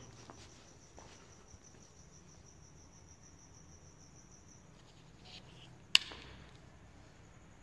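Crickets chirping faintly in a steady, high, pulsing trill, with a single sharp click about six seconds in.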